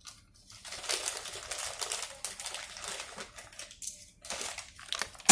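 Hands handling a spare relay and small parts: a stretch of rustling with many small clicks, then a few separate clicks, the sharpest one near the end.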